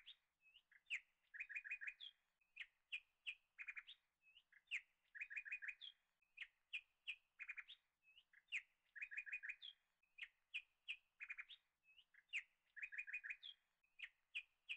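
Faint bird chirping: quick, high chirps in short runs, the same phrase repeating about every four seconds like a loop.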